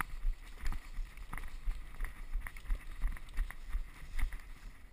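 Running footsteps through tall dry grass, about three footfalls a second. Each footfall is a thump with the crackle and swish of grass stalks brushing past, heard through a head-mounted camera.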